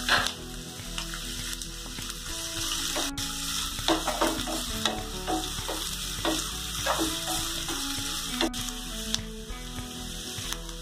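Diced carrot and capsicum sizzling as they fry in oil in a nonstick pan, with a wooden spatula stirring and scraping through them again and again.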